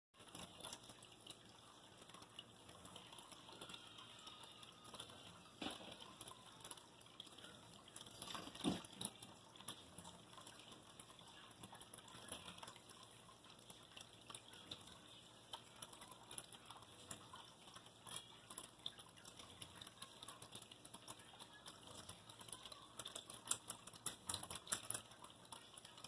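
Pet water fountain's stream trickling steadily down into its bowl, a faint continuous splashing. A few louder ticks stand out, about nine seconds in and again near the end.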